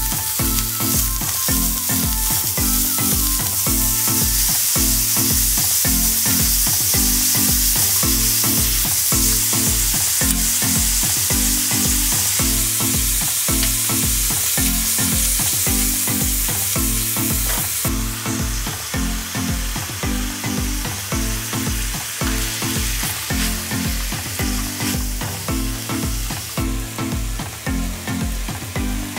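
Ground beef sizzling in a hot stainless steel pan as it is stirred and broken up with a spatula. The sizzle eases a little about two-thirds of the way through. Background music with a steady beat plays underneath.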